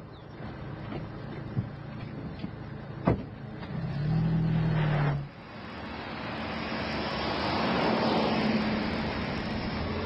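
Car on the road: a sharp knock about three seconds in, a low held tone for about a second after it, then a rush of road noise that builds and holds.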